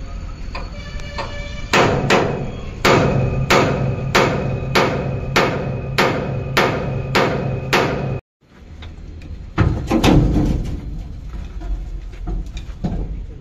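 Steel hammer blows on the truck's leaf-spring mounting, about ten evenly spaced strikes with a ringing note, as a leaf spring is removed. After a sudden break, a few heavier, irregular metal clanks follow.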